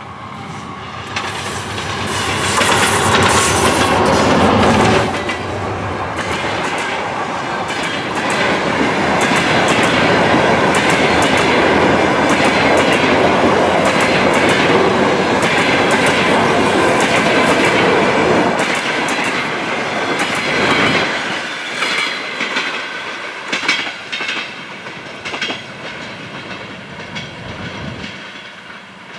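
A 3TE10M diesel locomotive passes close by, loudest a few seconds in, with its two-stroke 10D100 diesel engines. A long train of passenger coaches follows, rolling by with a steady clickety-clack of wheels over rail joints. The sound fades as the train moves away, with a few single wheel clacks near the end.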